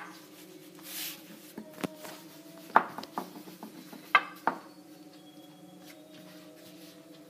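Long thin wooden rolling pin working homemade phyllo dough, rolled around the pin on a floured countertop: a soft rub of hands along the pin near one second in, then several sharp knocks of the pin on the counter between about two and four and a half seconds in, over a steady low hum.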